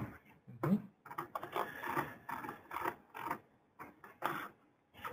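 Quiet, indistinct speech with scattered sharp clicks and taps.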